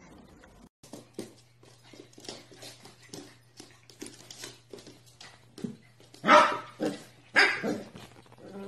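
A small puppy barking twice in loud, high yips about six and seven seconds in, with a weaker one just after. Before that come a few seconds of light, quick taps and scuffles on a hard floor.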